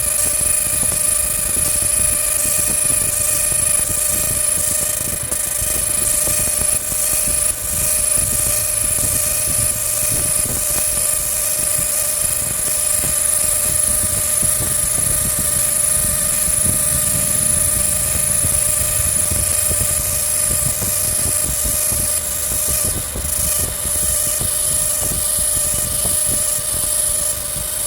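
300 W pulsed laser cleaner running continuously on a rusty bell with a sawtooth scan pattern: a steady crackling hiss from the beam ablating rust over a constant whine with several pitches from the machine.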